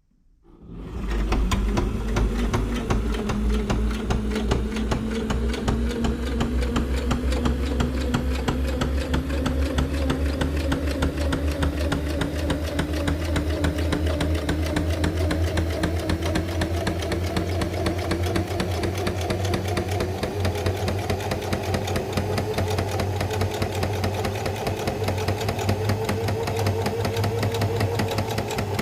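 Electric sewing machine running steadily, stitching along the long edge of a folded vinyl strap piece. It starts about a second in, and its motor pitch rises slowly as it speeds up.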